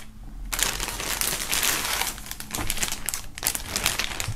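Clear plastic film bag crinkling as a folded cotton T-shirt is pulled out of it, starting about half a second in, with a brief lull near the end.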